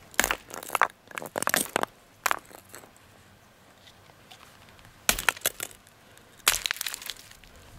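A 4 lb sledgehammer striking a block of ice with a flashlight frozen inside: a run of sharp blows with crunching and cracking ice, a pause of a couple of seconds, then more blows.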